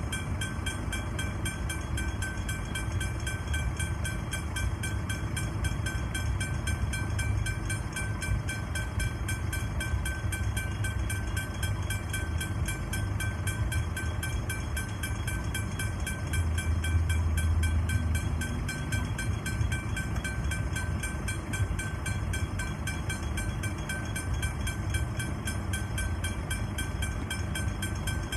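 Level crossing warning bells ringing with rapid, even strikes while the crossing is activated, over road traffic. A low rumble swells briefly a little past the middle.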